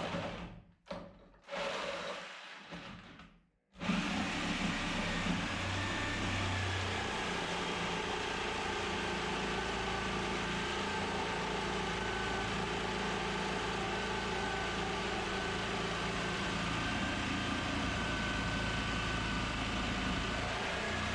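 A few short knocks, then about four seconds in a motor starts running steadily without pause.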